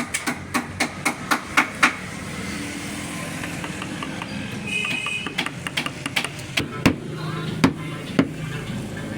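Repeated sharp knocks of a hand tool striking wood, quick at first, about three a second, then a few spaced strikes later on.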